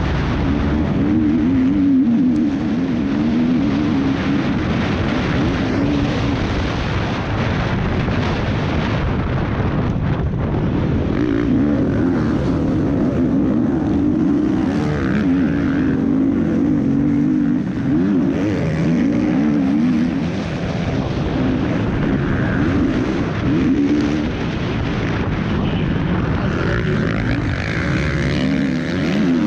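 Motocross bike engine at race throttle, its pitch rising and falling as the rider opens and closes the throttle through the corners. Heard close up from the rider's helmet camera.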